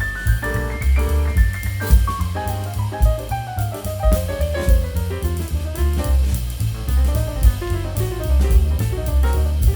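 Background music: an upbeat jazzy tune with drum kit and a melody line stepping down in pitch.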